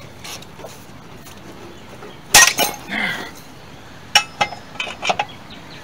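Steel four-way lug wrench clanging as very tight lug nuts are broken loose: one loud ringing clang a little over two seconds in, then a run of lighter metal clinks near the end.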